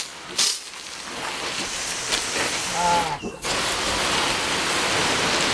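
Water spraying from a pistol-grip garden hose nozzle onto the soil of a raised bed: a steady hiss that stops briefly about three seconds in and then comes back.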